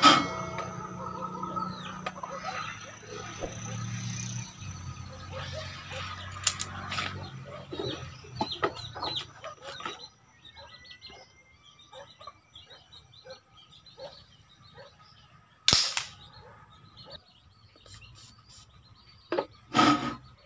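A single sharp shot from a homemade PVC alcohol-combustion marble gun firing an 8mm steel ball, about three-quarters of the way in. Chickens cluck faintly in the first half, and two short handling knocks come near the end.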